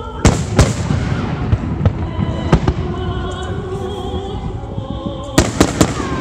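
Aerial firework shells bursting in sharp bangs: two close together near the start, one about midway, and a quick run of three near the end. Show music plays under the bangs.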